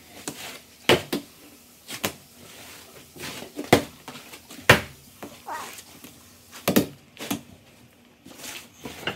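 A giant slime stress ball, a Super Wubble Bubble filled with slime, being pressed and squished by hand: short, irregular squelches and slaps, roughly one a second.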